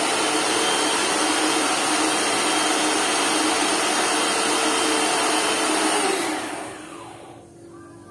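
Lakoni Laguna 70 high-pressure washer running, then shutting off about six seconds in, its pitch falling as the motor winds down.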